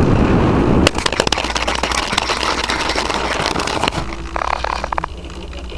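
Twinstar II foam RC plane belly-landing with its motors off, heard from the onboard camera: air rushing, a sharp touchdown hit about a second in, then the fuselage scraping and crackling over a gravelly road. The scraping eases off after about four seconds as the plane slides to a stop.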